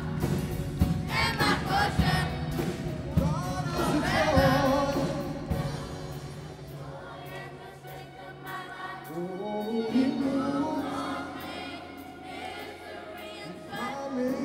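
Children's gospel choir singing with band accompaniment. Drumbeats sound through the first half, and the voices rise into long held notes near the end.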